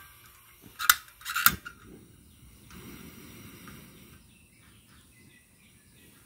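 Two sharp metallic clicks about a second in, a little over half a second apart, from handling a stainless steel camping mug at a cartridge gas camping stove, followed by faint low noise.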